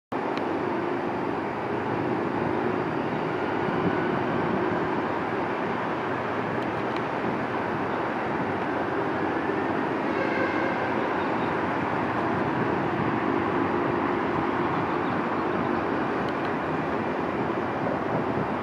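Twin jet engines of a Boeing 767-300ER freighter, General Electric CF6-80C2 turbofans, running at high power for takeoff: a steady, loud jet noise with a low hum under it.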